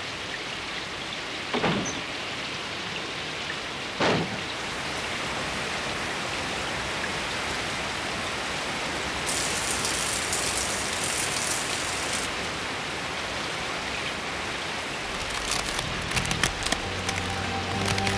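Heavy rain pouring steadily, with two brief knocks about two and four seconds in. Music comes in near the end.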